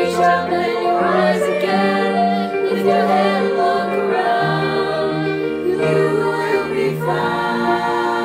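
Music: a choir singing, with long held notes.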